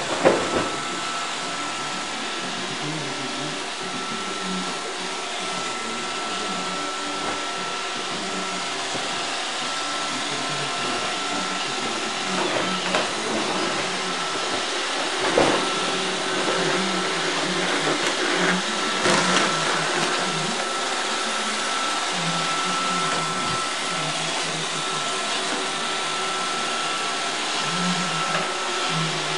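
iRobot Roomba 555 robot vacuum running: a steady whirr with a constant high whine, broken by a few brief knocks.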